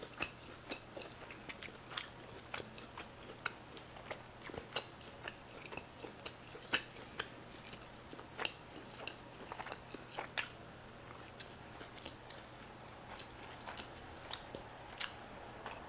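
A person chewing a mouthful of steak burrito close to the microphone: soft, wet mouth clicks and smacks at irregular intervals, a few a second, fewer past the middle.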